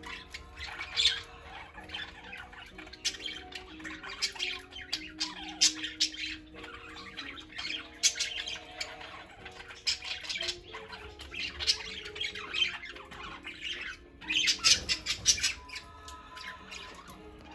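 A flock of budgerigars chattering: rapid scratchy warbles and chirps, broken by several louder squawks.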